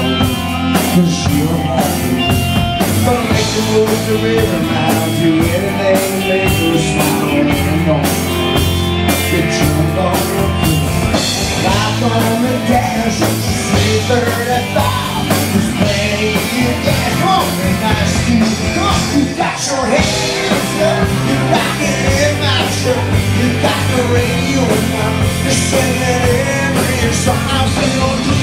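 Live country-rock band playing loudly: electric guitars, bass guitar and drum kit with a steady beat, and singing.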